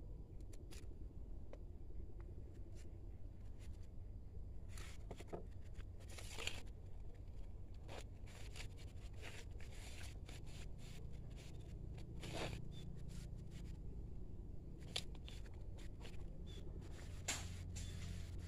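Scattered crackles and scrapes of rubber-gloved hands handling an aglaonema's roots, settling the plant into a plastic pot and pressing in coconut-husk potting mix, over a low steady hum.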